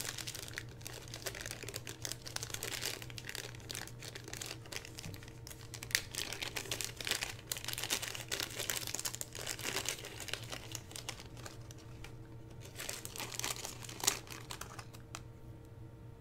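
Small clear plastic parts bag crinkling and rustling in the hands as it is opened and a micro servo motor is worked out of it, with many light irregular clicks and rustles that thin out near the end.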